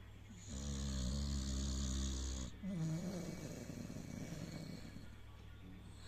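Pit bull snoring in deep sleep. A loud snore of about two seconds starts half a second in, followed by a rougher snore that fades over the next few seconds.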